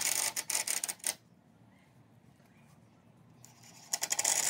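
Cordless drill driving screws into wood framing, in two bursts: one running through about the first second, another starting about a second before the end.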